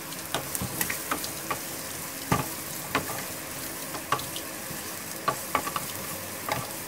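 Sliced onions, green capsicum and dried red chillies sizzling in hot oil in a nonstick frying pan while being stirred with a wooden spatula, which knocks and scrapes against the pan at irregular moments, the loudest knocks about two and three seconds in.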